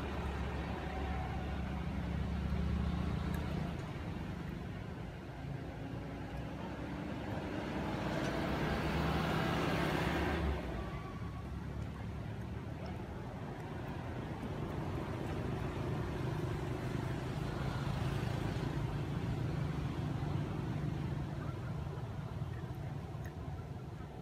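Motor vehicles passing, a steady low engine hum that swells loudest about eight to ten seconds in, then cuts off, and rises again more gently in the second half.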